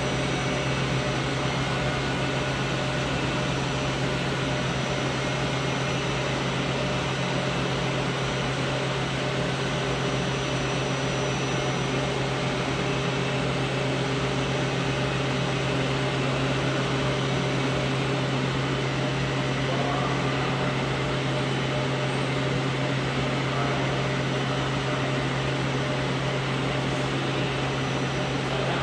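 Hurco VC500i five-axis CNC mill running, its spindle turning a small end mill through a metal part: a steady machine hum with a strong low drone.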